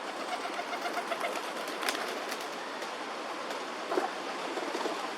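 Pigeons cooing low over a steady outdoor background hiss, with a couple of sharp clicks.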